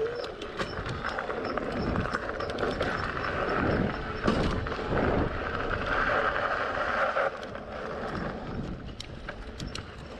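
NAKTO 36 V 300 W fat-tyre electric mountain bike being ridden over rough ground: a continuous rumble of tyres with many knocks and rattles from the bike. A steady higher hum runs through the middle and cuts off suddenly about seven seconds in.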